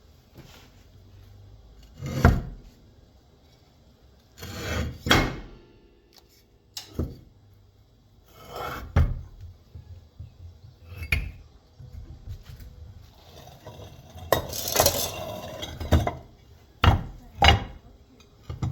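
Heavy metal parts of a large electric motor being shifted and set down: scattered clunks and scrapes, with a longer stretch of scraping about three-quarters through and two sharp knocks near the end.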